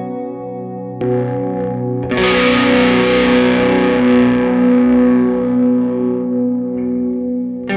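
Electric guitar chords through distortion and a hall reverb with its level and decay maxed, ringing out in a long washy sustain. A new strum comes about a second in, then a louder, distorted, hissy wash about two seconds in that slowly dies away.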